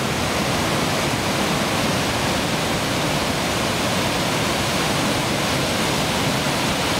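Waterwheel Falls on the Tuolumne River: whitewater cascading down granite slabs in a loud, steady rush with no break or change.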